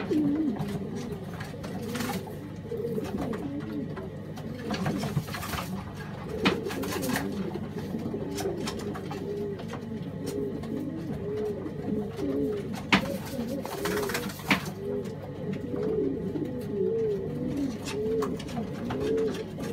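Horseman pouter pigeon cooing over and over in short rolling phrases, with a few sharp clicks here and there.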